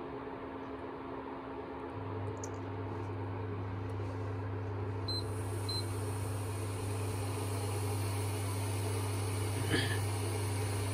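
Prestige induction cooktop switched on for testing: a steady low hum sets in about two seconds in, and its control panel gives two short beeps about five seconds in. It then runs on steadily, now heating continuously rather than stopping and restarting, its slow-heating fault cured by the repair.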